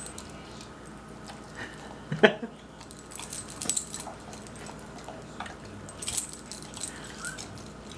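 A dog's metal collar tags jingling in short scattered bursts as it noses and nudges a peeled hard-boiled egg across the floor, with one sharper knock about two seconds in.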